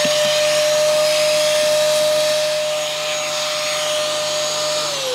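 Dyson vacuum cleaner running with a steady high whine over a rushing hiss as its hose sucks debris out of a car's front radiator intake. Near the end the motor is switched off and winds down, its pitch falling.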